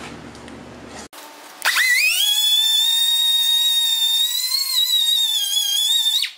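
A handheld high-speed grinder spins up about a second and a half in to a steady, high whine, wavers slightly in pitch, and cuts off abruptly near the end. It is the tool used for porting the RB30 cylinder head's exhaust ports.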